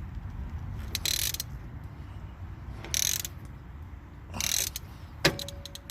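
Rear brake caliper piston being twisted back into its bore with a tool: three short ratcheting, scraping strokes about a second and a half apart, then a sharp metallic click with a brief ring near the end. The piston is being screwed back to make room for new pads.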